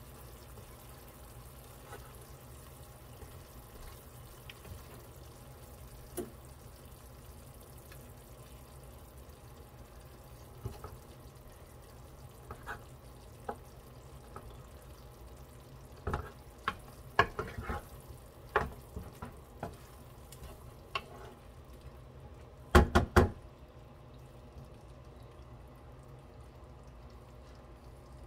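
Sweet and sour pork simmering in its sauce in a frying pan with a low, steady sizzle, while a wooden spatula stirs and scrapes through it. Sharp knocks of the spatula against the pan come in the second half, the loudest a quick group of three or four about three-quarters of the way through.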